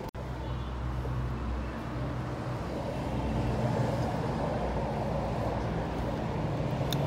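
Steady low rumble of motor vehicles running in the background, with a brief break in the sound just after the start.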